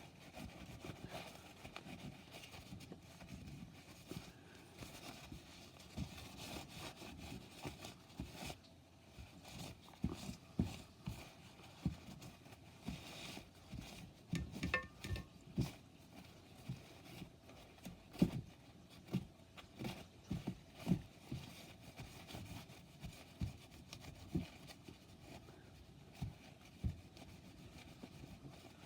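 A towel rubbing and wiping over a graphics card wet with cleaning alcohol, with irregular light knocks and taps as the card is handled.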